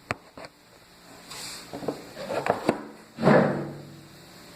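Handling noise from the recording camera being moved and set in place: a couple of sharp clicks, then rubbing and a quick run of knocks, and a louder scrape and bump about three seconds in.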